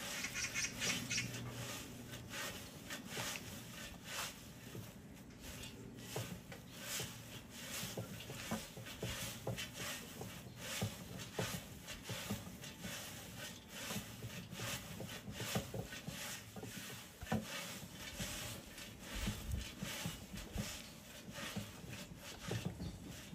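Fresh green tea leaves rustling and crackling as gloved hands toss and press them against the sides of an iron cauldron while pan-firing the tea, an irregular run of soft scrapes and rustles.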